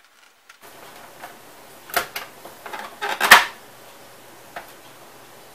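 Hard plastic clicks and knocks from the casing of a Sony Mega Watchman portable TV as its top cover is worked loose by hand. There is a click about two seconds in, a louder clatter a little after three seconds, and a faint click near the end, over a low steady hiss.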